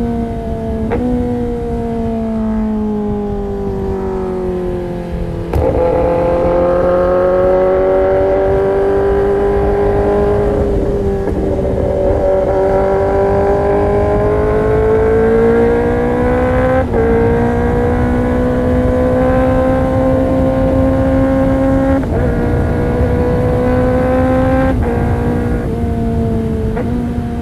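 Kawasaki ZX-10R inline-four engine through an Arrow Pro-Race exhaust, under way at varying throttle: the engine note sags and climbs slowly, with several sudden jumps in pitch as gears change. It gets louder about five seconds in.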